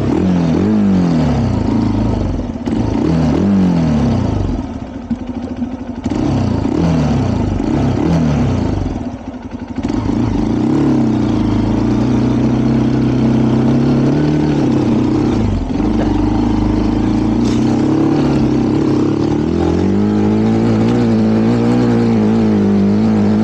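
Trail motorcycle's single-cylinder engine, a Honda CRF150L, revved in a run of short bursts, each falling away in pitch, for about the first ten seconds, then running at a steady held speed, picking up a little near the end.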